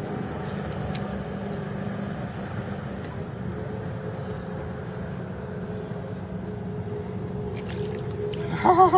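Steady low rumble of an engine running nearby, unchanging throughout, with a faint steady hum joining in later. A child's voice sounds briefly near the end.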